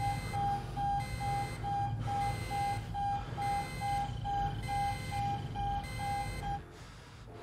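Electronic warning alarm on a submarine control panel, beeping rapidly at about two and a half beeps a second over a low rumble. It is the alarm for a fire in the torpedo room, and it cuts off suddenly about six and a half seconds in.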